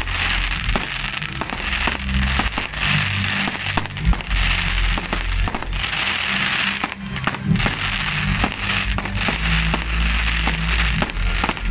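Fireworks bursting and crackling: a rapid, irregular run of sharp pops and bangs over a continuous crackle of aerial shells and ground fountains. Music with a low bass line plays underneath.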